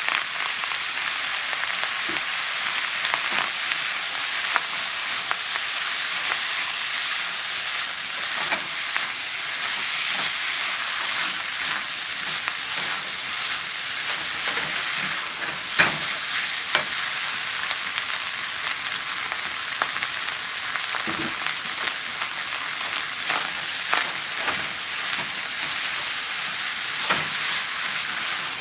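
Veggie fried rice sizzling steadily in a nonstick skillet as it is stir-fried, just after soy sauce has gone in. A slotted spatula scrapes and taps the pan at irregular moments, with one sharper knock about sixteen seconds in.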